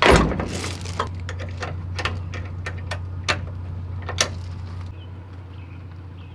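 Metal clanks and clicks of a trailer coupler being latched onto a truck's hitch ball, with a loud clank at the start and then a string of lighter clicks and knocks. A steady low hum runs underneath and fades out about five seconds in.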